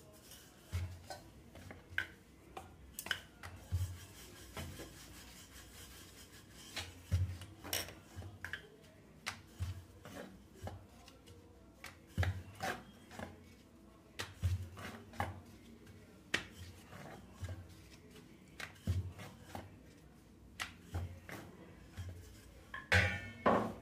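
Wooden rolling pin rolling out momo dough on a wooden board: rubbing strokes with irregular soft knocks as the pin rocks and meets the board, and a louder knock near the end.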